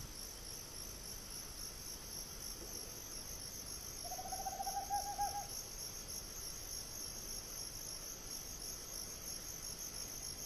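Tropical screech owl giving one rapid trill of quick notes, beginning about four seconds in and lasting about a second and a half, over a steady high chirring of night insects.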